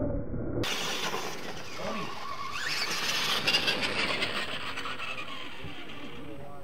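Radio-controlled monster trucks driving on a dirt track, their motors whining and rising and falling in pitch as they speed up and slow down.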